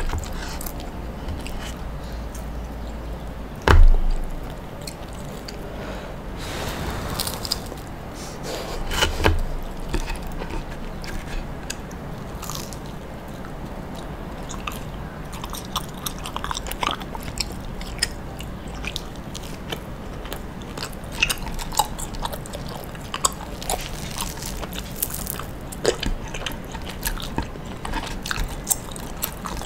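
Close-up eating sounds of burnt mochi: crisp crunches from the charred crust and sticky chewing, as a run of short sharp clicks. A low thump about four seconds in is the loudest sound.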